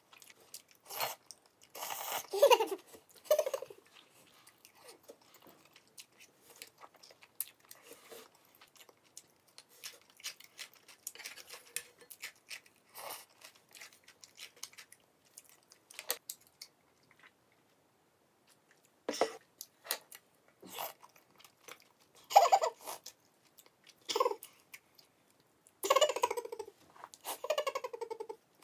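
Close-up eating sounds: chewing and biting with small crunches and wet clicks. Louder mouth noises come in short clusters, mostly in the last third.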